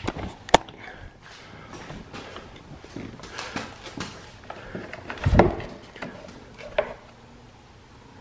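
Close handling noises: scattered clicks and knocks as hands work around a lawn mower's plastic grass-catcher bag, with a sharp click about half a second in and a louder thump about five seconds in.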